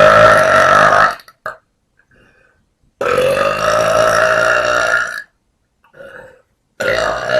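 A woman burping: three long, loud, deliberate belches with a steady pitch. The first lasts about a second, the second about two seconds, and the third begins near the end.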